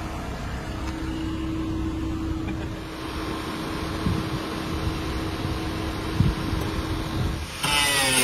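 Small corded electric hand tool running with a steady hum, with a few short knocks. Guitar music starts near the end.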